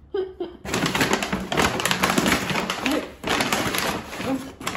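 Brown paper grocery bag rustling and crinkling as groceries are handled and pulled out of it, in two stretches of dense, crackly handling noise.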